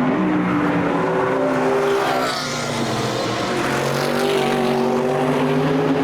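Racing car engines passing at speed under hard throttle, their pitch shifting. The sound dips briefly about two and a half seconds in as one car goes and the next comes through, its engine note rising.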